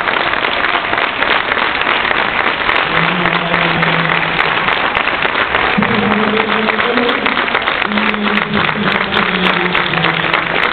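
Ice hockey crowd in the stands clapping loudly, with supporters joining in a sung chant in unison from about three seconds in.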